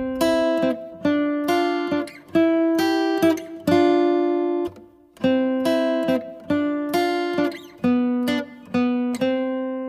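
Background music: an acoustic guitar picking a steady run of chords, about two a second, each ringing and fading, with a brief pause about five seconds in.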